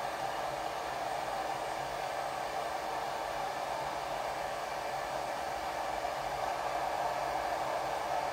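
Hairdryer running steadily, blowing air over a freshly bathed dog's wet coat, an even rushing hum that doesn't change.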